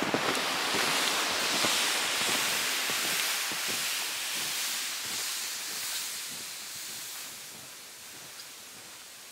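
Snowshoes crunching through deep snow at a walking pace, about two steps a second, over the steady hiss of a plastic sled dragged behind on a rope; the sound fades as the walker moves away.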